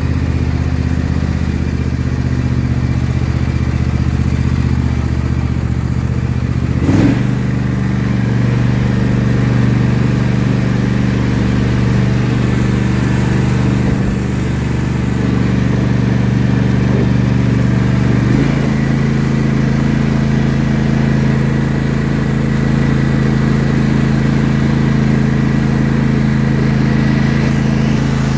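John Deere S160 lawn tractor engine running steadily while the tractor is driven. About seven seconds in there is a brief clunk and the engine speed steps up, and it steps up again around eighteen seconds in.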